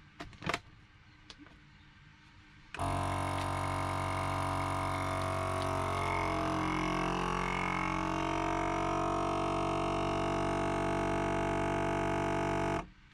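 Vacuum sealer's pump running in one steady droning hum, drawing the air out of a bag. It starts suddenly about three seconds in, after a couple of short clicks, and cuts off abruptly near the end.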